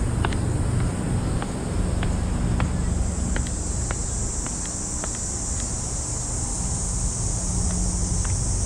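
Cicadas droning, a steady high-pitched buzz that swells in about three seconds in, over a constant low rumble.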